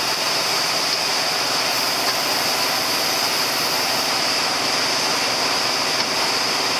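A 1-inch pneumatic impact wrench running without a break as it drives lug nuts onto a truck's dual wheel, then cutting off just at the end.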